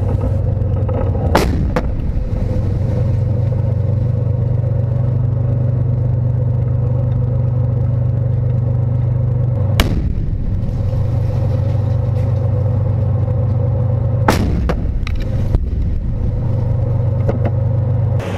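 Tank engine running with a steady low rumble, broken by a few sharp cracks: one about a second and a half in, one at about ten seconds, one at about fourteen seconds, and a few smaller ones soon after.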